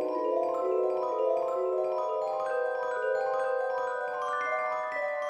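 Instrumental music: mallet-percussion tones playing a melody of overlapping held notes that step higher in pitch toward the end.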